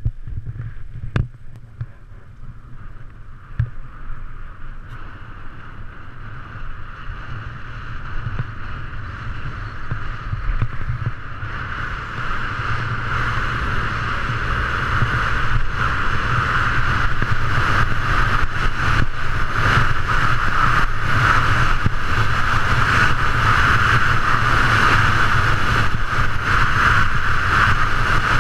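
Skis hissing and scraping over packed, groomed snow on a fast downhill run, mixed with wind rushing over the action camera's microphone; it grows steadily louder as speed builds. A few sharp clicks come in the first few seconds.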